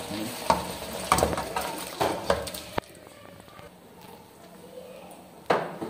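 Metal spatula knocking and scraping against a wok as pieces of fried fish are tipped into the masala gravy: several knocks in the first three seconds, then much quieter, with one more knock near the end.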